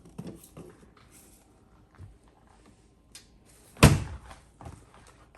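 Kitchen items being handled while searching for a spice: a few small knocks and rustles, then one loud thunk nearly four seconds in.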